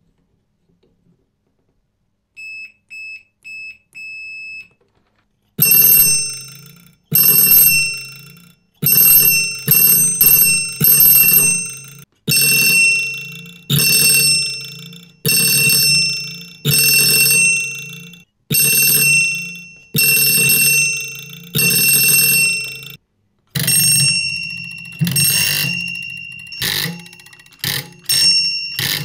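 Antique electric trembler doorbell ringing in repeated bursts of about one to one and a half seconds, its clapper striking the brass bell rapidly, each burst fading off as it stops. A few short soft dings come first. Near the end the ringing changes to the unrestored original bell, whose strikes come irregularly.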